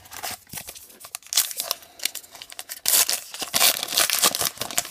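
A 2018 Topps Gypsy Queen baseball card pack's paper wrapper being torn open by hand, with crinkling and ripping. The sound is loudest and densest about three seconds in.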